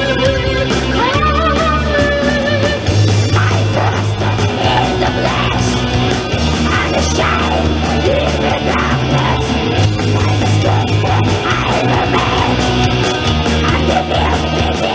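Black metal band playing live through a stage PA: dense distorted electric guitars over bass and drums, with screamed vocals.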